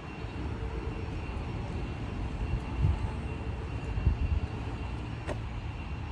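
Steady low outdoor rumble, swelling louder twice in the middle.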